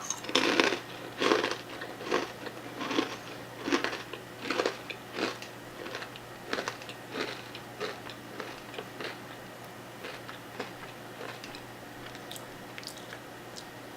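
A person chewing crunchy pretzels close to the microphone: a run of sharp crunches about one a second, loudest over the first few seconds, fading to soft, sparse chewing in the second half.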